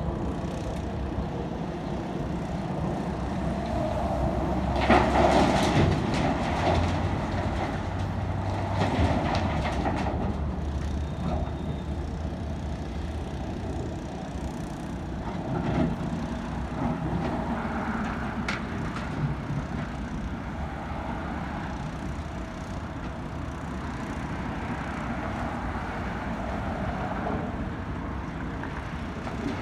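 Excavator engine running steadily under load, with occasional clanks and scrapes of the bucket working debris, the loudest about five seconds in.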